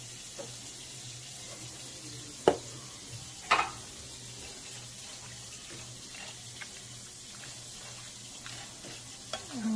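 Diced chicken breast frying in a pan with a steady sizzle over a low, even hum. Two sharp knocks, a second apart, stand out a couple of seconds in.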